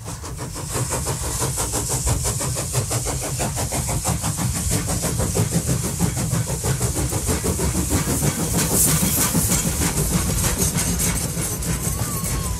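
Steam train running, with a fast, even chuffing beat over a low rumble and a steady hiss, fading up over the first second or two.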